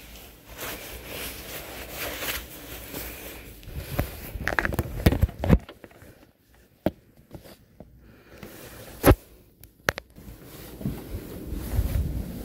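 Handling noise of a phone held against a nylon puffer jacket: rustling, scattered knocks and several sharp clicks, the loudest about nine seconds in. Near the end the noise builds as a door is opened.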